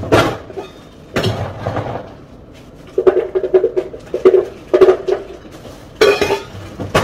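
Ice cubes being scooped and dropped into a plastic blender jar, clattering and clinking in several short bursts spread over a few seconds.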